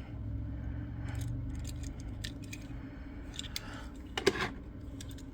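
Light clicks and taps of a die-cast toy car being handled and turned over, with a steady low hum underneath and one louder short knock about four seconds in.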